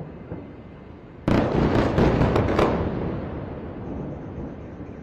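Explosion at an airstrike site: a sudden loud blast about a second in, followed by a rapid run of sharp cracks for about a second and a half, then a rumble dying away.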